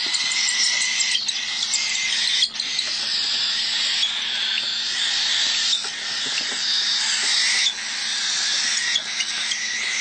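Young cockatiels begging for food during syringe hand-feeding, a continuous raspy hiss of food-begging calls.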